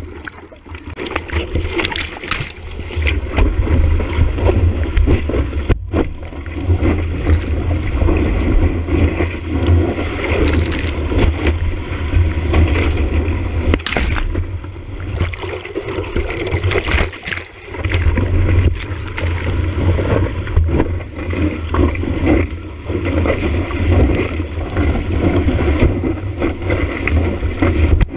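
Surf rushing and splashing around a surfboard moving through breaking whitewater, heard from a camera mounted on the board's nose. The water and wind buffet the microphone with a heavy low rumble and crackle, and the sound stays loud.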